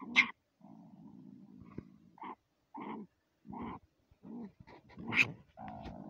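A marten growling low and steadily, in short pulses about every half second to second, with two loud, sharp snarls: one right at the start and one about five seconds in.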